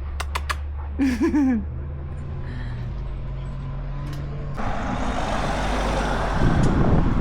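A motor vehicle's engine hums low and steady, then the noise of traffic builds and is loudest near the end, as a vehicle passes close by.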